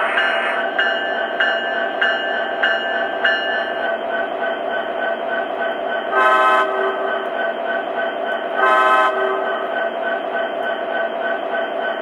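Sound system of an O scale EMD SD70ACe model locomotive playing a diesel idling through its small speaker. For the first few seconds a locomotive bell rings at a steady pace, then stops. Two short horn blasts come a couple of seconds apart, the two-short signal for moving off.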